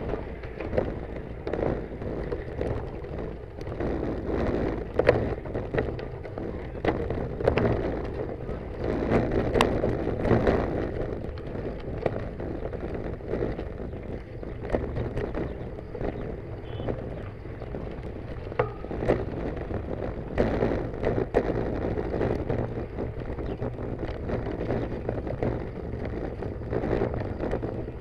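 Bicycle rolling over a rough dirt and gravel road, tyres crunching and the bike rattling with frequent knocks over bumps, with a low wind rumble on the microphone.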